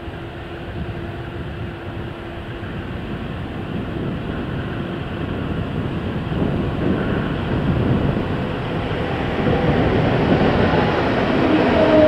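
Vintage V 200 033 diesel-hydraulic locomotive (DB class 220), with a class 212 diesel coupled behind, hauling a passenger train as it approaches: engine drone and rail rumble growing steadily louder.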